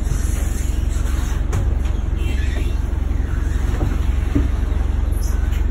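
A boat's engine running with a steady low rumble while the boat is manoeuvred in to dock, with faint shouts from the crew over it.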